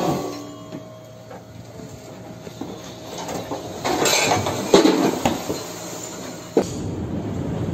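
Loose objects sliding and clattering around a ship's cabin as the vessel rolls in a storm: rattles and clicks a few seconds in, a sharp knock near the end, then a steady rumbling.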